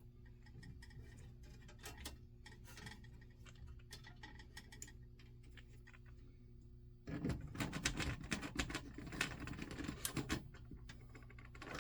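Small clicks and light rattling from hands working on alarm panel wiring, faint at first, then louder and denser for about four seconds from about seven seconds in, over a steady low electrical hum.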